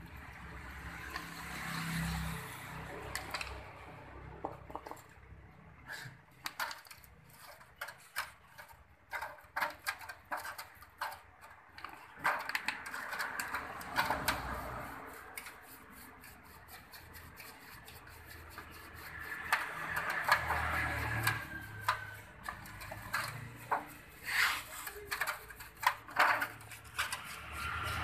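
A brush scrubbing the finned cylinder block and cylinder head of a Honda Spacy scooter engine in a metal parts tray, with many scattered clicks and knocks of the metal parts against the tray and spells of scratchy scrubbing.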